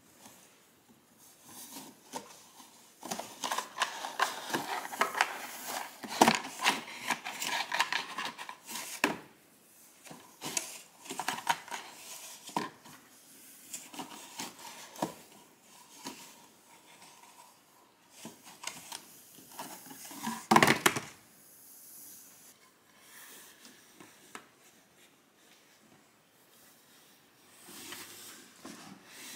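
Irregular scratching, rubbing and light knocks against a hard surface, as a cat moves about and claws at a homemade cat shrine. The knocks are densest early in the first ten seconds, and there is one sharp, louder clatter about twenty seconds in.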